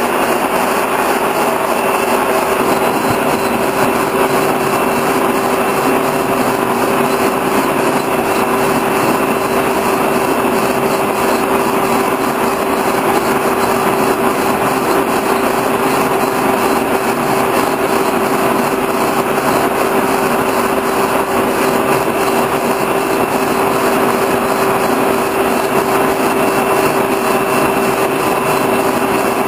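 Horizontal boring mill running steadily, its spindle and faceplate turning a shaft as on a lathe: an even mechanical hum with one steady tone through it.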